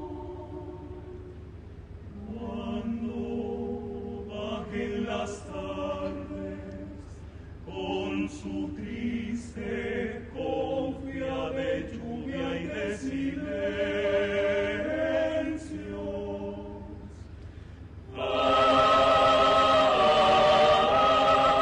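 Mixed choir of men's and women's voices singing unaccompanied in harmony, the phrases rising and falling in loudness, then swelling suddenly to a loud full chord about three-quarters of the way through.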